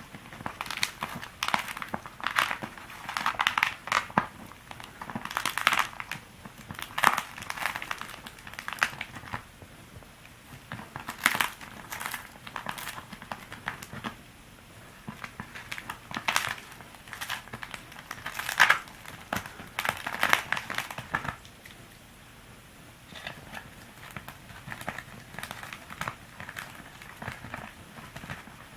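A dry palm-leaf conical hat crinkling and crackling in irregular flurries as a dog plays with it, with short pauses between flurries; the flurries are quieter in the last few seconds.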